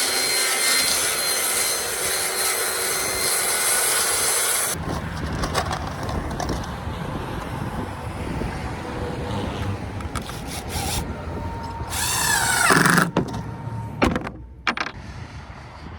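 Electric power saw cutting through wood along a marked line. About three-quarters of the way in, the motor winds down with a falling whine, followed by a few sharp knocks.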